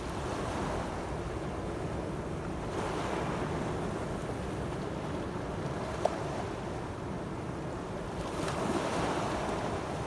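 Small sea waves breaking and washing onto a rocky, pebbly shore, with wind on the microphone. The wash swells about three seconds in and again near the end. A single sharp click comes about six seconds in.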